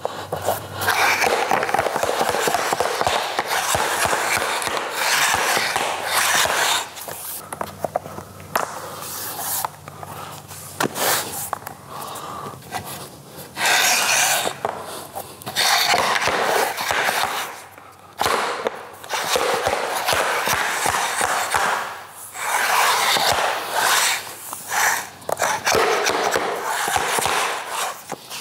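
Vinyl plank flooring being fitted: planks scraping as they are slid and worked into position, with repeated sharp taps as the locking joints are knocked together with a tapping block and hammer. The joint is stiff and slow to close.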